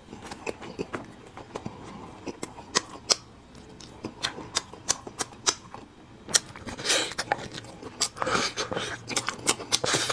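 Close-miked eating: chewing a mouthful of steamed bun with many short wet mouth clicks and lip smacks, then sucking and slurping at the open end of a braised marrow bone, heard as a few short hissy slurps in the second half.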